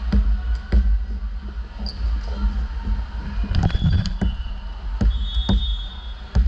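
A basketball bouncing on a hardwood gym floor in an irregular series of sharp knocks, with short high sneaker squeaks about four and five seconds in, over a steady low rumble of gym noise.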